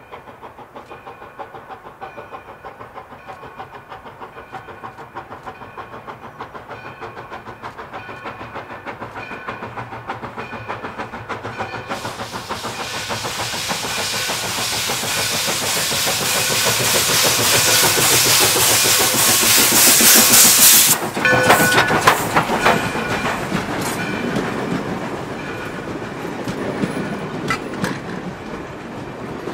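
Black River & Western No. 60 steam locomotive approaching and passing, its exhaust chuffing growing steadily louder; about twelve seconds in a loud hiss of steam from its open cylinder cocks sets in, loudest as the engine passes. After a few clanks the passenger cars roll by, wheels clicking over the rail joints.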